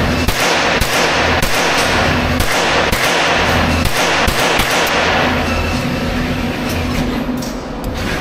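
A quick string of .22 rimfire shots from a Thompson-style rifle, about two to three a second, echoing in an indoor shooting range. The shots thin out after about five seconds and stop shortly before the end.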